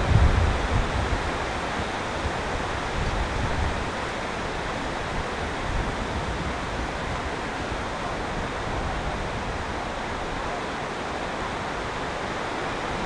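Steady, even hiss of background noise, after a low rumble fades out in the first second or two.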